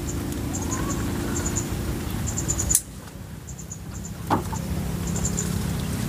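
A low, steady motor hum, with one sharp snap about four seconds in.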